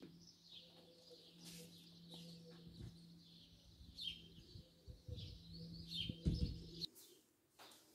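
Small birds chirping now and then, over a steady low hum that stops abruptly near the end. A few low thumps, the loudest about six seconds in.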